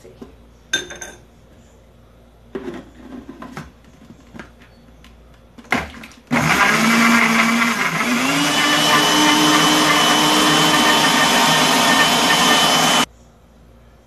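Kitchen blender, its blades freshly sharpened, blending large chunks of raw beetroot: about six seconds in the motor starts with a loud whirring hum that steps up in pitch a second or two later as the pieces break up, runs steadily, then cuts off suddenly near the end. Before it, a few clicks and knocks as the jar and lid are handled.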